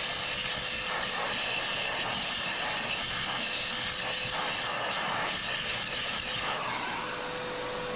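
Vacuum cleaner running steadily, with a constant motor whine under the rush of air as its hose nozzle sucks grounds and buildup out of an espresso grinder's burr chamber.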